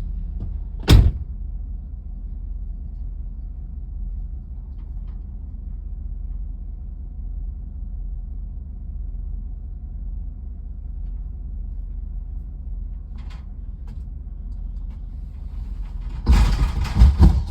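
Steady low rumble of an idling vehicle, with one sharp knock about a second in and a loud burst of banging and scraping lasting about a second near the end.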